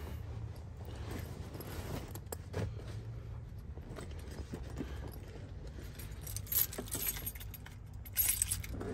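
A bunch of car keys jangling and clinking as they are handled, over a low steady hum; the jingling gets louder and busier near the end.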